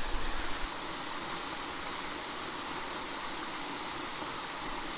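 Small creek waterfall spilling into a pool: a steady rush of water, with a low rumble on the microphone in the first second or so.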